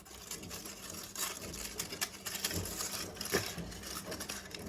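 Washing machine running with a stone inside, rattling and clattering quickly and irregularly against the drum.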